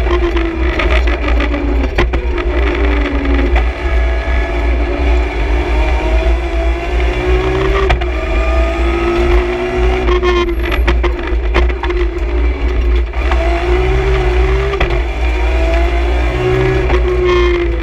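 BMW M3 E46 CSL rally car's straight-six engine heard from inside the cockpit at stage pace, its pitch climbing under acceleration and dropping back again and again with gearchanges and braking, over a constant deep road rumble. Clusters of sharp clicks and rattles cut in about ten seconds in and again near the end.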